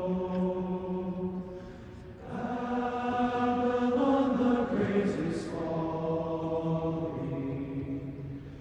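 Several voices singing together in slow, long-held notes, like a hymn, with a break between phrases about two seconds in and another near the end.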